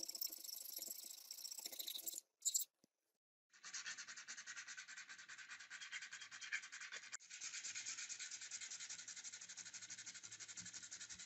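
Sandpaper rubbed by hand over a steel axe head in quick, short back-and-forth strokes, scouring off rust. The rubbing stops for about a second two seconds in, then starts again.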